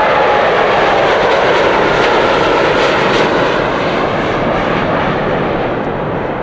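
Boeing 787 Dreamliner's jet engines at takeoff thrust, a steady loud roar as the airliner lifts off and climbs away, slowly fading in the last couple of seconds.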